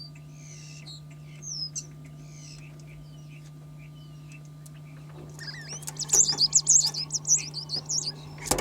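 Starlings chirping: faint scattered whistles at first, then a loud, rapid run of high chirps starting about five seconds in.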